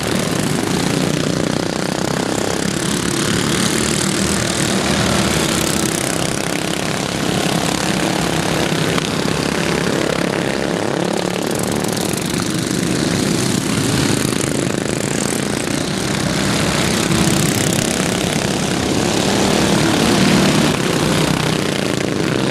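Several racing lawn mowers' stock single-cylinder flathead engines running hard together, swelling and fading every few seconds as the mowers pass.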